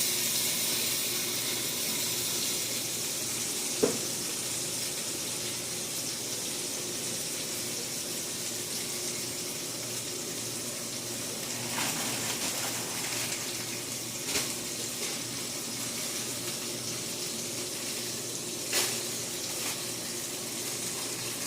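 Hamburger patties frying on a steel griddle: a steady sizzling hiss, broken by a few short sharp taps.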